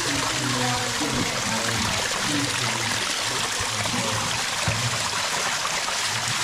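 Small underground waterfall pouring down a rock face and splashing steadily onto the rock below.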